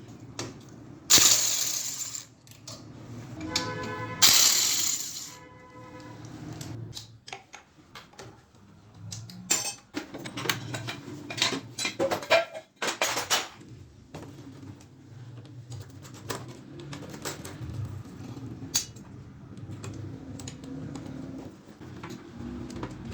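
Metal tools and engine parts clinking and clanking as a motorcycle engine is taken apart. Two loud metallic clangs come in the first few seconds, the second ringing on, followed by scattered lighter clinks and clicks.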